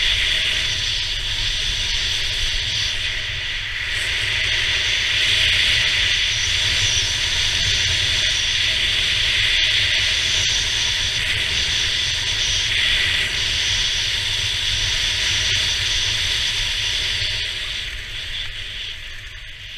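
Skis sliding and scraping over packed snow on a downhill run: a steady, loud hiss, with wind buffeting the camera's microphone underneath. It eases off over the last two seconds as the slope flattens out.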